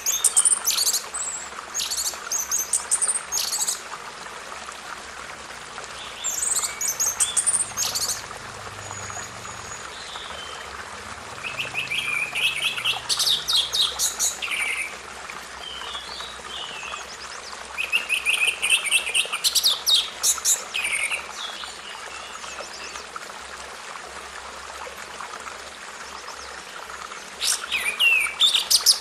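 Songbirds singing in short, high-pitched phrases of chirps and trills that come every few seconds, over a steady rush of running water.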